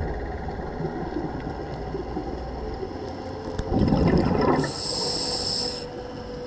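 Scuba diver's regulator breathing underwater: a loud burst of exhaled bubbles about four seconds in, followed by about a second of the hissing inhalation through the regulator, over a steady low underwater rumble.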